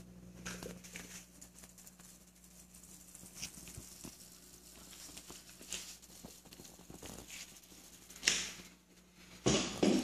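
Aquarium water splashing and pattering at the surface where the filter's outflow bar churns it, over a steady low hum. Two louder noises come near the end.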